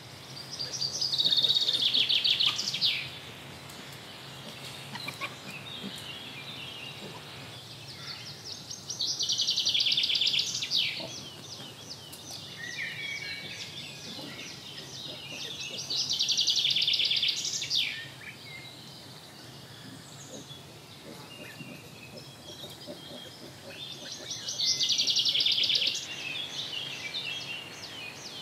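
A songbird singing a short, rapidly trilled phrase of about two seconds, four times, spaced about seven to eight seconds apart. Other birds chirp faintly between the phrases.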